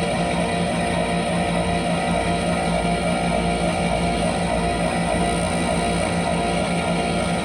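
Trane XP-series central air conditioner running: a steady hum with several fixed tones over fan noise, unchanging in level.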